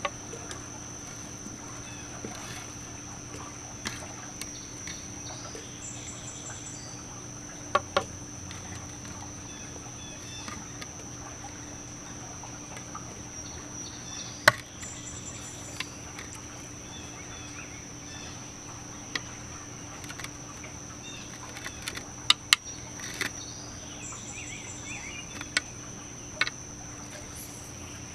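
A steady high insect trill in the background, with scattered sharp taps and knocks from hands working with a plastic blender cup, fruit and a plate. The sharpest knock comes about halfway through, and a cluster of them about three-quarters of the way in.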